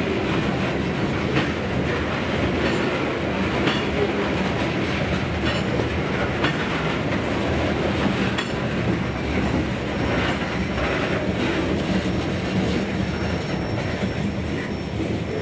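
Freight train's covered hopper cars rolling past, steel wheels clicking over the rail joints with a steady rumble.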